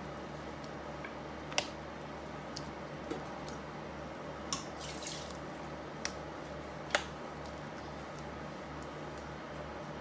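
A ladle moving through broth in a stainless steel pot, with a few sharp clinks of the ladle against the pot and light dripping, over a steady low hum.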